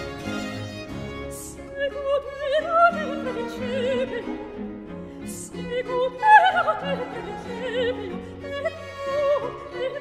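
Classical background music: a high operatic voice sings a slow melody with wide vibrato over orchestral strings.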